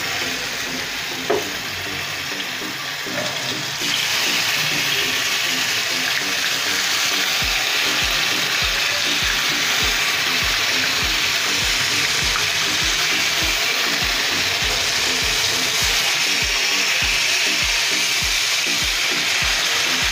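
Skewers of marinated chicken sizzling in hot oil in a frying pan as they are laid in one by one, the sizzle growing louder about four seconds in as more go in. A single sharp click a little over a second in, and background music with a steady beat of about two pulses a second from about seven seconds in.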